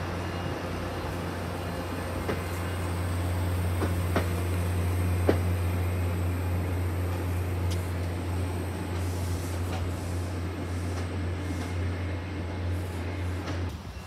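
MBTA commuter rail train rolling past and away, a steady low drone with the wheels clicking sharply a few times over the rail. The drone cuts off abruptly near the end.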